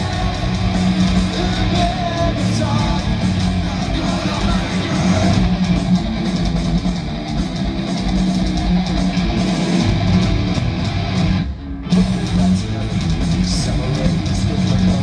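Heavy metal band playing live: an instrumental passage of distorted electric guitars, bass and drums. The music cuts out for an instant about eleven and a half seconds in and comes straight back in.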